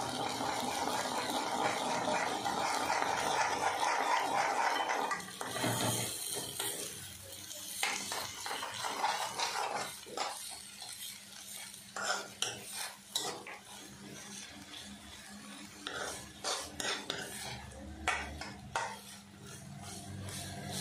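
Steel spoon stirring and scraping in a metal kadai, scrambling an egg into a moist vegetable stir-fry: a steady sizzle for the first five seconds or so, then repeated spoon scrapes and clicks against the pan.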